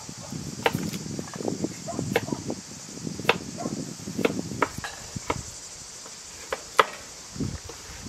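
Knife cutting cauliflower into florets by hand: irregular crisp crunches of the stalks and a dozen or so sharp clicks of the blade, with a steady high insect drone behind.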